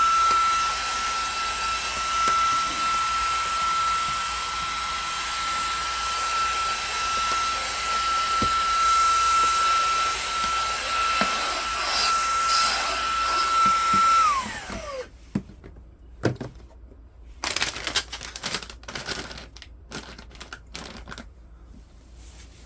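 Xiaomi mini cordless vacuum cleaner running with a steady high-pitched whine. About 14 seconds in it is switched off and the motor winds down with a falling pitch, followed by scattered knocks and clicks of the vacuum being handled.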